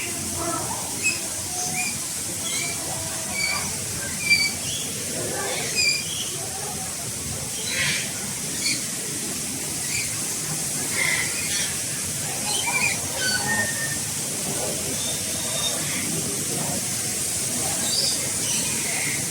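Many birds chirping in an aviary, short high notes coming every second or so, over a steady high hiss.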